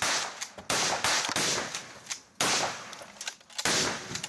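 Four gunshots in a row at irregular spacing, each a sharp crack that fades out over about half a second.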